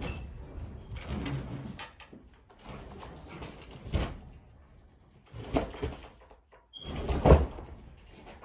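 A washing machine bumping and scraping as it is worked down a staircase, with repeated heavy thumps. The loudest come about four, five and a half and seven seconds in.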